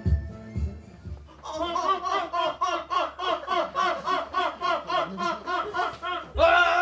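A person laughing in quick repeated ha-ha pulses for several seconds, after the last of a beat-driven music track fades out in the first second. Near the end a loud voice holds one long note.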